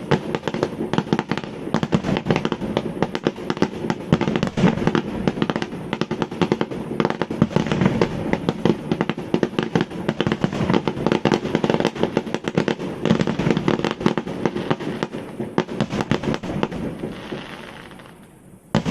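A dense barrage of fireworks: many overlapping bangs and crackles going off rapidly and continuously. It thins out and fades near the end, then a fresh loud burst begins.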